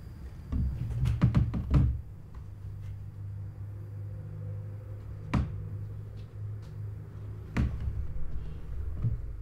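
Heavy domestic cat jumping down from the top board of a wooden cat tower: a quick run of wooden knocks and thuds as the board rattles under its weight and paws land. Two more single thumps follow a few seconds apart as the cat moves onto a second wooden tower.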